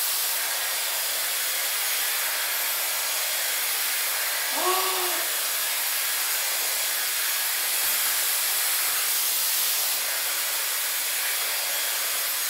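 Dyson Airwrap hair styler with its brush attachment blowing air through wet hair on its middle airflow and middle heat settings: a steady airy hiss. A short voiced sound from the user cuts in about four and a half seconds in.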